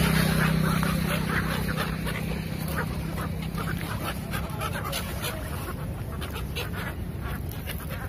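A flock of gulls calling: many short, overlapping cries. A low steady hum runs under them for the first half and then fades out.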